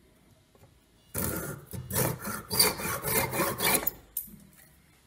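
Hand saw cutting through a wooden clothes peg held in a vise, cutting its end off. Quick rasping back-and-forth strokes start about a second in and stop just before the end.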